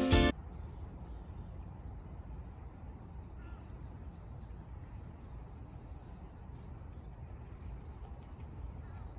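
Guitar background music cuts off just after the start, leaving faint outdoor ambience: a steady low rumble with a few faint high chirps.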